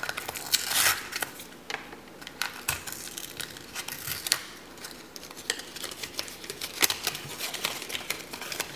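Crinkly plastic packaging being handled, with irregular small plastic clicks and short rustles, a burst of rustling about half a second in.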